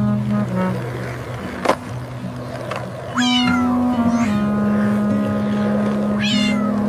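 A cat meowing twice, each a short falling cry, about three seconds apart over background music with held notes. A single sharp click comes about a second and a half in.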